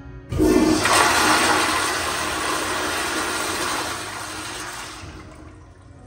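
TOTO CT705 commercial toilet bowl flushed by its flushometer valve: a sudden loud rush of water about a third of a second in, which holds for a few seconds, then eases off and fades out near the end.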